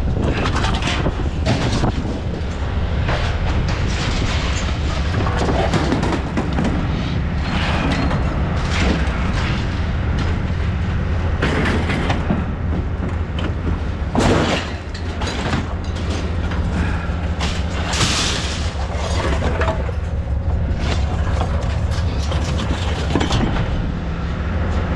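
Truck running down the road, heard from the cab: a steady engine drone with irregular knocks and rattles, the loudest about fourteen seconds in.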